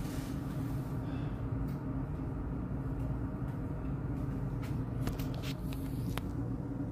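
Steady low mechanical hum of a room's fan or air conditioning. Near the end come a few sharp clicks and knocks as the camera is handled.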